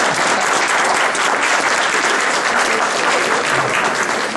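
Audience applauding, with many hands clapping steadily and loudly.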